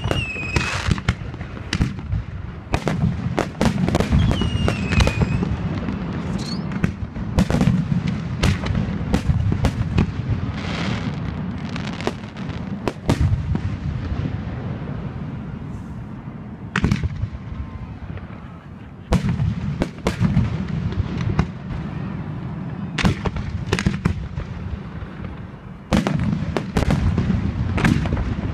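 Aerial firework shells bursting overhead: a dense run of bangs and crackling over a low rumble, with a couple of descending whistles in the first few seconds.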